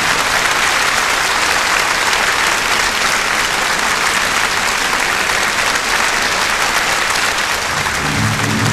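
Theatre audience applauding steadily, a dense even clapping. Music comes back in near the end.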